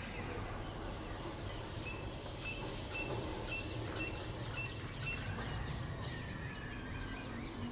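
A bird calling a run of short, high, evenly repeated notes, about two a second, followed by a longer drawn-out note, over a steady low rumble of outdoor noise.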